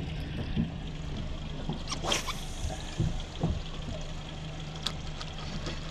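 Suzuki 90 outboard motor idling with a steady low hum, water moving around the hull. About two seconds in, a quick swish as a spinning rod casts a lure, followed by a few light knocks.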